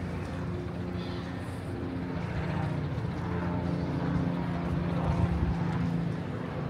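A steady, low engine drone that grows louder toward the middle and eases off near the end, as of a powered vehicle passing.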